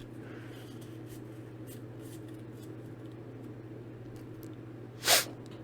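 Quiet handling of a Pokémon card booster pack over a steady electrical hum, with faint scattered clicks and rustles and one short, loud rustling burst about five seconds in.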